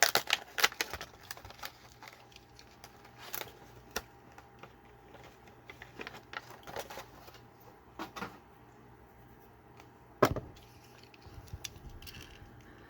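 Plastic packaging of a diecast toy car being pried and cracked open by hand. It starts with a quick run of sharp clicks and crackles, followed by scattered single clicks and snaps, the loudest about ten seconds in.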